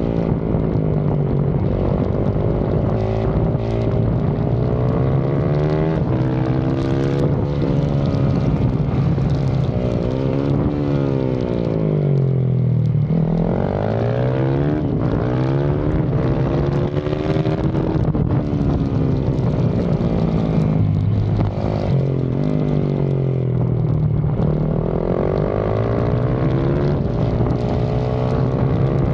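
Yamaha YZ450FX's single-cylinder four-stroke engine run hard around a track, its revs repeatedly climbing through the gears and dropping sharply when the rider comes off the throttle for corners.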